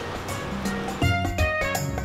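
Background music: after a second of steady low noise, a tune of short, evenly spaced notes comes in about a second in.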